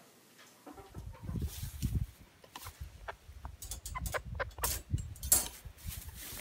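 Domestic hens clucking in short calls over a low rumble of wind on the microphone, which starts under a second in.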